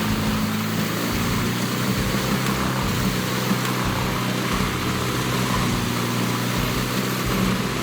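Bandit 2590 whole tree chipper running steadily: a constant engine hum under a continuous broad rushing noise, with no change in load.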